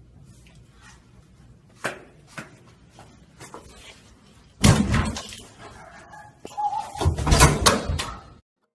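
A hotel-room door slams shut hard about halfway through, after a couple of light knocks. Near the end comes a flurry of thumps and rattles as the door and its handle are grabbed and yanked.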